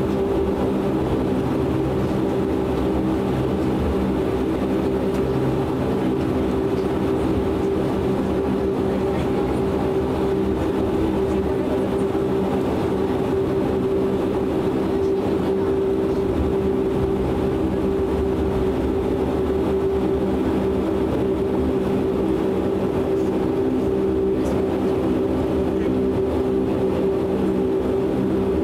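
Steady drone of a DHC-8 Q400's Pratt & Whitney PW150A turboprops and propellers at taxi power, heard inside the cabin: several steady humming pitches over an even low rumble.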